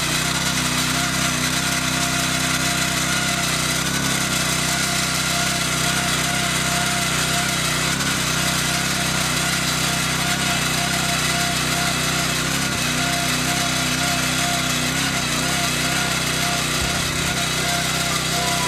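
Honda Komame F210 mini tiller's small engine running steadily as its tines work through grassy soil, weeding and cultivating between crop rows.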